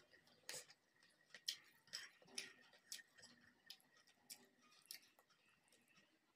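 Faint, irregular clicks of eating by hand: chewing, and fingers mixing rice and fish curry on a plate.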